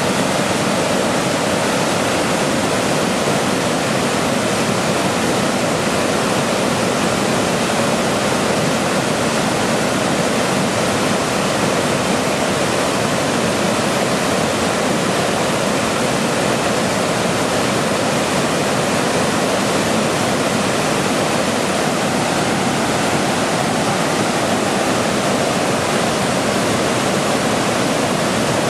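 Sleep-aid white noise: a steady, even hiss that does not change.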